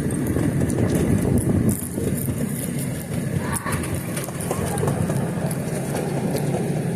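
Moving train heard from aboard: a steady rumble and rattle of the cars running along the track.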